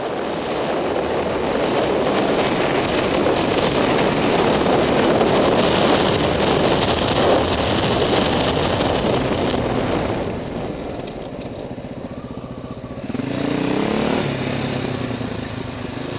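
Motorcycle riding at speed, heard from a helmet camera: wind rushing over the microphone covers most of the engine. After about ten seconds the rush eases as the bike slows, and the engine comes through, its pitch rising briefly a few seconds later before it runs steadily.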